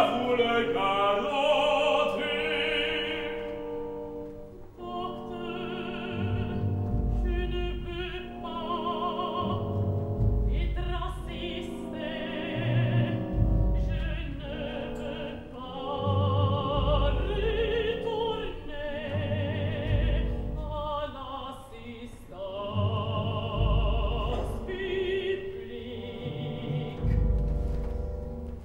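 Operatic singing with vibrato over an orchestra: a man's voice and a woman's voice sing in turn. A deep low orchestral note sounds about every three seconds beneath them.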